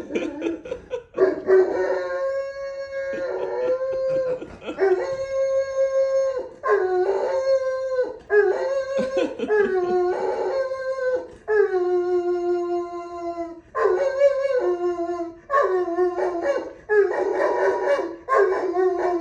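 Great Pyrenees dog howling, set off by someone coughing outside: a run of long howls, each held for one to two seconds with short breaks between, several dropping in pitch at the end.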